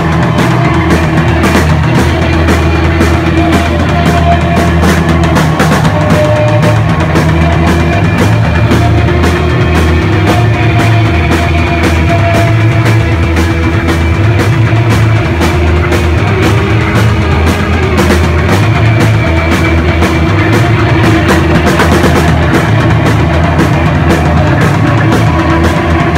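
A rock band playing loud and live with no singing: a drum kit with frequent cymbal hits, an electric bass moving between low notes, and a dense, distorted wash of guitar-and-effects-pedal noise.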